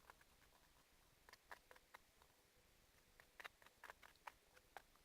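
Near silence with faint, scattered light clicks and taps from handling the slime-making things on the table, about a dozen, more of them in the second half.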